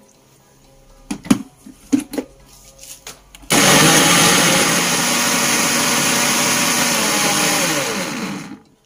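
A few clunks as the jar goes onto the countertop electric blender's base. Then the motor runs steadily for about five seconds, grinding onion, garlic and lemongrass with a little water into a paste, and cuts off shortly before the end.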